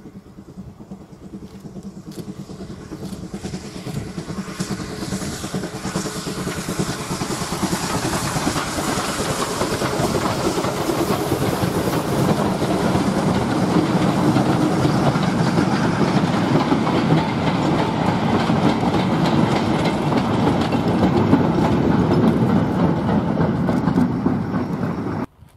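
Steam-hauled train approaching and passing close by, its wheels clattering over the rail joints. It grows louder over the first ten seconds or so, stays loud, then cuts off suddenly just before the end.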